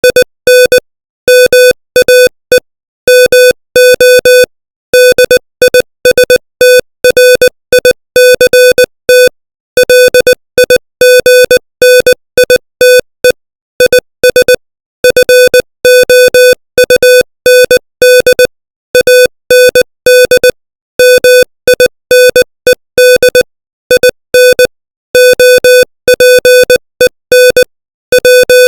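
Morse code sent at 20 words per minute: a single mid-pitched electronic beep keyed on and off in short dots and longer dashes, with brief gaps between characters and longer gaps between words.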